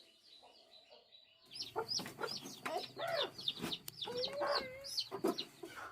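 Chickens clucking and squawking, many short calls in quick succession that start abruptly about a second and a half in, over a low steady hum.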